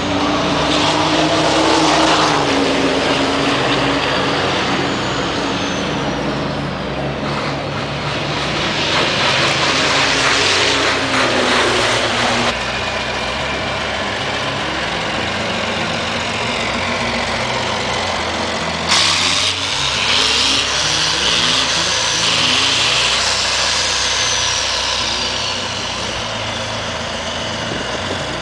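Fórmula Truck diesel race-truck engines running loud, swelling and fading in several long waves, with high whines that slide down in pitch.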